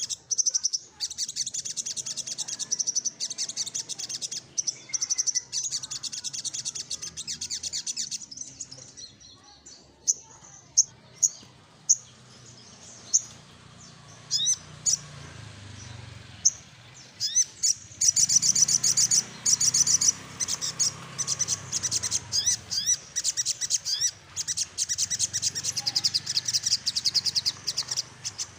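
Male olive-backed sunbird (sogok ontong) singing: long bursts of very rapid, high-pitched rattling trills, broken in the middle by several seconds of scattered single chirps before the trilling resumes.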